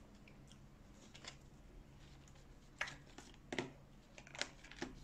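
Faint handling noise: from about three seconds in, a few sharp clicks and crinkles as fingers work among paper food boxes and a plastic sauce cup, picking up a chicken nugget and dipping it in sauce.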